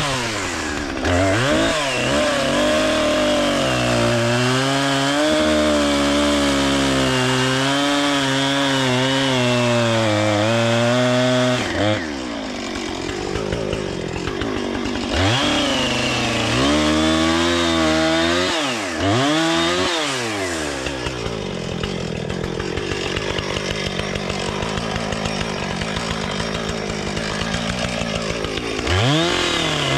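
Two-stroke chainsaw running at high revs and cutting wood. The pitch wavers under load, drops back several times and quickly revs up again, and settles lower and steadier for a while before rising again near the end.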